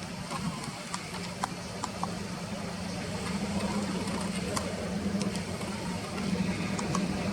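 Steady low engine hum, with short faint high ticks scattered through it.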